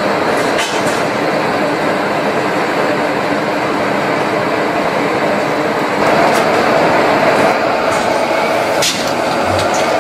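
Steady, loud running noise of old stationary engine machinery, with a few sharp clicks, growing louder about six seconds in.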